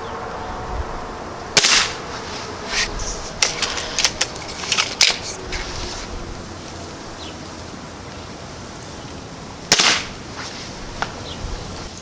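Two shots from a Gamo Swarm .177 break-barrel air rifle, about eight seconds apart, each a sharp crack with a short tail. Between them comes a run of lighter clicks and knocks.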